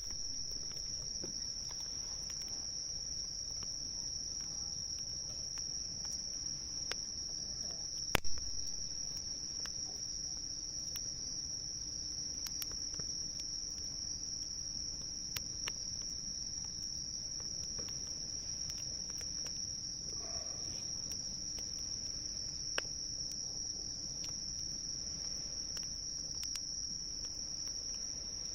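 Crickets chirring in a steady high-pitched chorus, with scattered small crackles from a campfire and a louder pop about eight seconds in.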